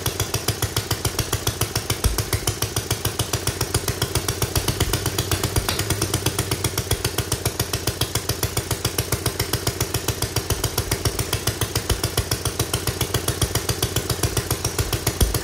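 Homemade metal 3D-printed single-cylinder engine running steadily, with a fast, even beat of about six strokes a second.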